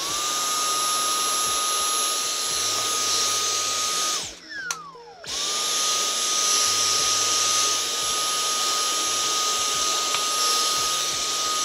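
Vacuum cleaner running with a steady high whine as its brush nozzle sucks up incense ash from a glass desktop. About four seconds in it is switched off and the whine falls as the motor spins down. A second later it starts again and runs until it cuts off.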